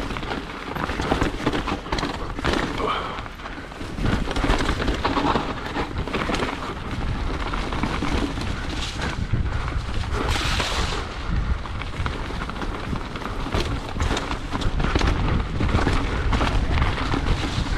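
Full-suspension mountain bike descending a steep, muddy trail: steady rumble of tyres and wind on the microphone, with many sharp clatters from the bike over rough ground and ruts. A brief louder hiss comes about ten seconds in.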